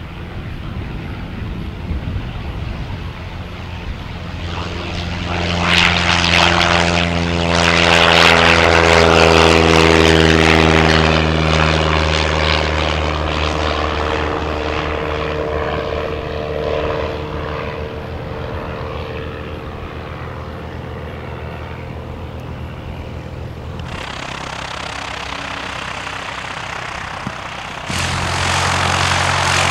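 Piper Cherokee Archer single-engine propeller plane at full power on its takeoff roll, its engine-and-propeller drone swelling to its loudest about a third of the way in. As it climbs away the drone falls in pitch and fades. Near the end it cuts suddenly to the plane's engine running steadily close by as it taxis.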